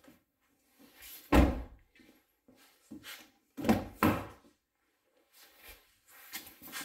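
Kia car doors being handled: one heavy door shut about a second and a half in, then two more thumps close together around four seconds in, with fainter knocks near the end.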